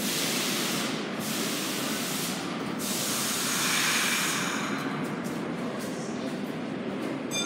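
Subway train in the station: a steady rumble, with a loud hiss over the first three seconds.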